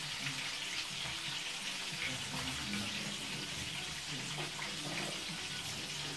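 Dried fish (tuyo) frying in hot oil in a pan: a steady crackling sizzle with scattered small pops.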